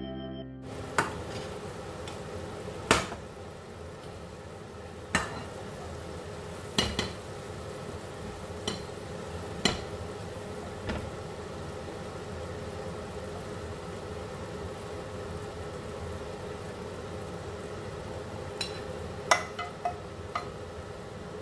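Honey-garlic sauce sizzling steadily in a nonstick frying pan, with sharp clinks of a metal spoon against the pan every second or two as chicken wings are stirred and spooned out, and a quick run of clinks near the end.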